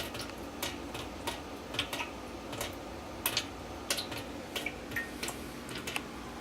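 Water dripping into a washing machine drum and landing in a small pool at the bottom, irregular plinks a few times a second. The water is leaking through a pair of valves even though they are closed and the supply is shut off.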